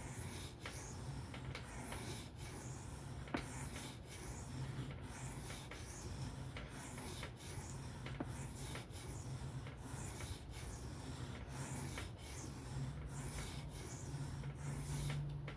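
Knife blade stroked freehand across a coarse 400-grit sharpening stone: an even scraping rasp, stroke after stroke, with a short break about every three-quarters of a second.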